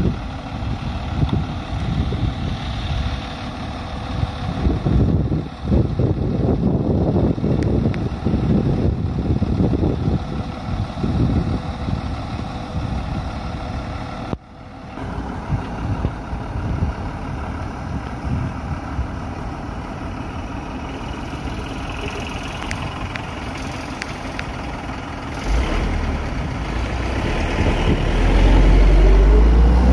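Vehicle engines idling in traffic stopped beside the elephant, a large bus among them. From about 25 seconds in, a heavy engine's low sound comes in and grows louder toward the end.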